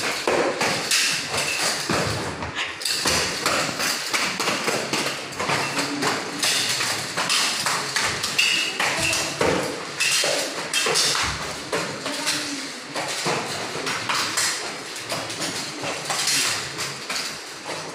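Irregular thumps and slaps, many in quick succession, from a barefoot martial artist performing a form: feet stamping on a tiled floor and hands striking his body and uniform.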